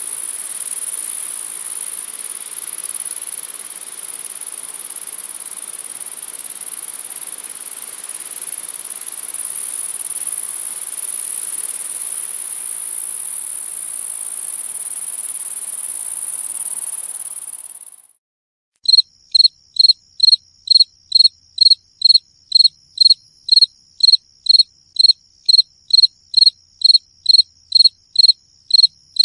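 A dense, steady, high-pitched chorus of many insects that stops abruptly about two-thirds of the way through. After a short gap, a single cricket chirps in an even rhythm, about two chirps a second.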